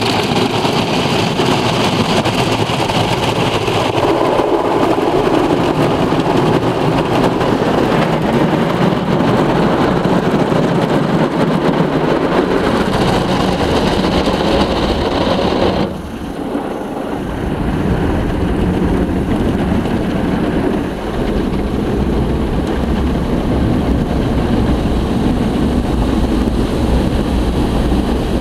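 Softgloss Maxx automatic car wash: its cloth brushes scrubbing over the car amid running water, heard from inside the car. About halfway through, the higher hiss drops away and a deeper rumble takes over.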